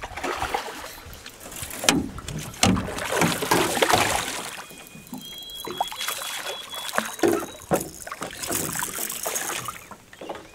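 A hooked smallmouth bass splashing and thrashing at the surface beside the boat as it is brought to the landing net, with the net dipping into the water. There are two sharp knocks about two seconds in.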